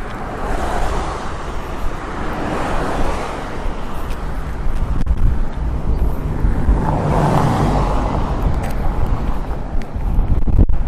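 Small ocean waves breaking and washing up the sand, two swells of surf about six seconds apart over a constant low rumble.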